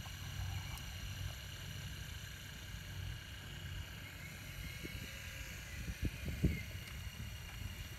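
Radio-controlled model excavator running as it digs and swings a loaded bucket: a steady mechanical hum over a low rumble, with a few dull knocks about six seconds in.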